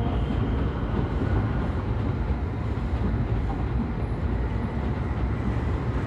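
Stockholm metro train crossing a bridge: a steady low rumble of wheels on the rails.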